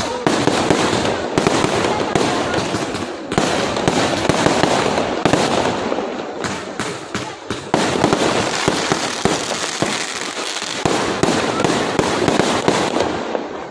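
Aerial fireworks going off in rapid, overlapping bangs and crackles, a dense barrage that thins out near the end.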